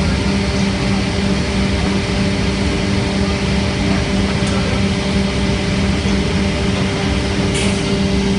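1998 Vollenweider textile shearing machine running: a loud, steady mechanical hum with a strong low tone and fainter higher tones over an even machine noise.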